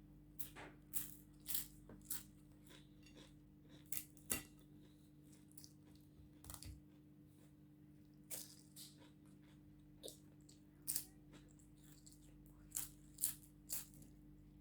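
Close-up eating sounds: scattered sharp crunches and mouth clicks, some in quick pairs, from biting and chewing crisp food, over a faint steady electrical hum.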